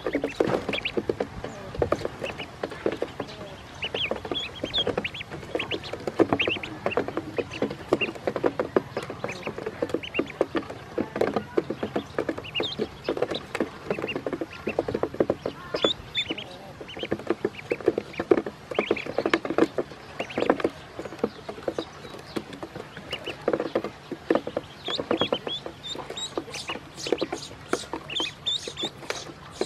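A group of ducklings feeding from a hard plastic tray: rapid tapping and clicking of their bills against the plastic as they peck up food, with short peeps here and there.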